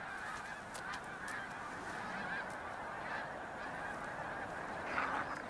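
A large flock of geese honking continuously, many calls overlapping into a dense chorus that swells briefly near the end.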